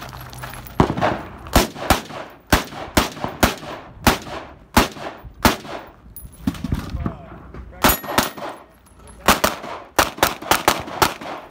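Gunshots fired in quick strings and close pairs, a few a second, with a sparser stretch a little past the middle and a faster string near the end.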